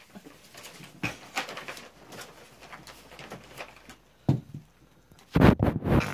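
Handling noise from reaching down and rummaging for an item: scattered light clicks and rustles, a knock a little past four seconds in, and a louder cluster of bumps near the end as the body comes back up.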